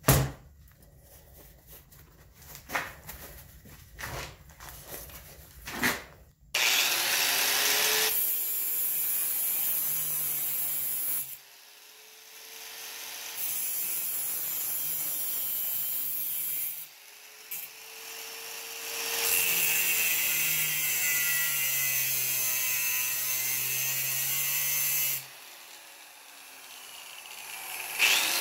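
Angle grinder with a thin disc scoring 16 gauge mild steel sheet along scribed bend lines, thinning the metal so it will fold on the brake. It grinds in three passes of several seconds each, with short pauses between them, starting about six seconds in. Before that there are a few light handling clicks.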